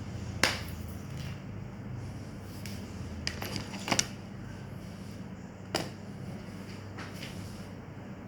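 A handful of sharp clicks and knocks of hard objects being handled, about five spread over the stretch, the loudest about half a second in and two close together near the middle, over a steady low hum.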